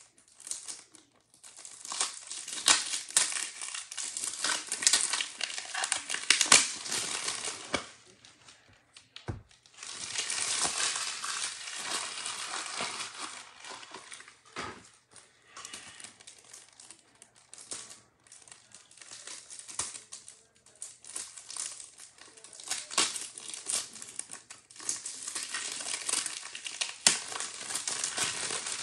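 Plastic wrapping crinkled and torn by hand in long crackly stretches, with a pause about eight seconds in.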